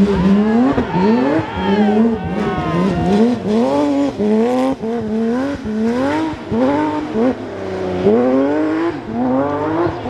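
Porsche 911 GT3 RS rally car's flat-six engine revving hard in quick repeated surges, its pitch rising and dropping over a dozen times as the car slides through a snowy hairpin.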